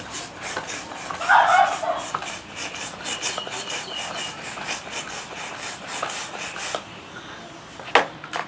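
Hand-held plastic balloon pump worked in quick strokes, air hissing through it into a latex balloon, then the balloon's rubber rubbing and squeaking as it is handled. A sharp click near the end.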